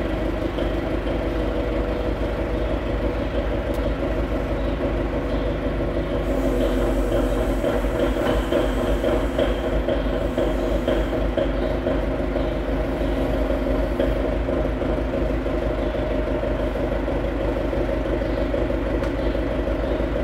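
Forklift engine running steadily, with a somewhat louder stretch lasting several seconds in the middle while the forklift carries the cylinder head.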